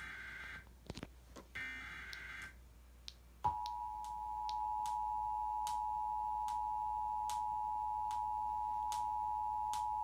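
Emergency Alert System tones from a TV speaker. Two short, harsh bursts of SAME header data are followed, about three and a half seconds in, by the steady two-tone EAS attention signal, which holds on as the loudest sound.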